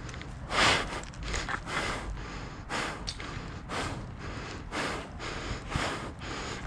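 A person breathing hard, with short rushing breaths about once a second.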